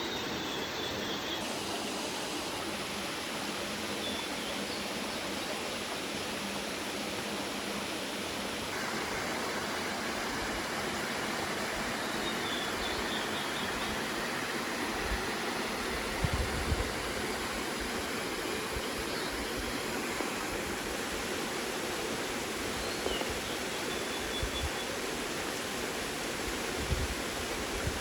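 Mountain valley stream flowing: a steady, even rush of water, with a few low bumps about halfway through and near the end.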